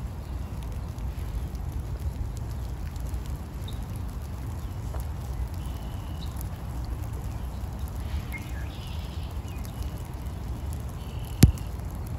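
Rainy outdoor ambience: a steady low rumble with faint scattered raindrop ticks and a few short bird chirps. One sharp knock comes near the end.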